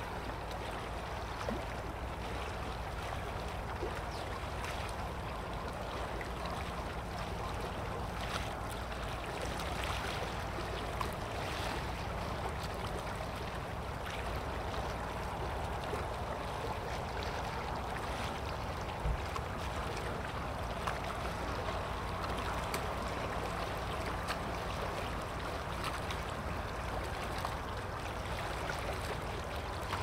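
Steady shoreline ambience: lough water lapping against rocks, with a low rumble of wind.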